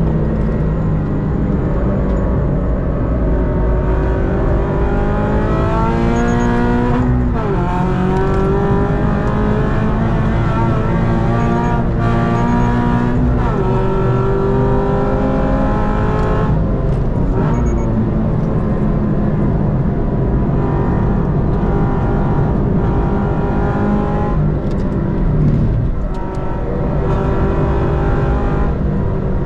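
2022 Subaru BRZ's 2.4-litre flat-four engine pulling hard on track, heard from inside the cabin. The note climbs steadily in pitch and falls away sharply at gear changes or lifts, about 7 and 17 seconds in, with a brief dip about 26 seconds in before it climbs again.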